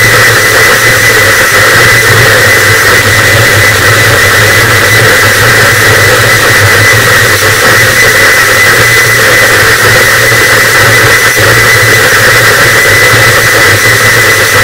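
Harsh noise wall: a loud, dense, unchanging wall of distorted static that never lets up, with a steady low rumble underneath and a thin, steady high tone running through it.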